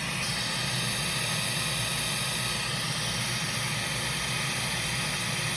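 Hot-air rework blower running with a steady rushing hiss while reflowing a BGA SSD chip onto a laptop motherboard.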